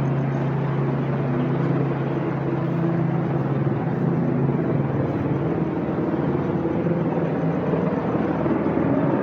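A steady low engine hum over street noise, weakening about halfway through.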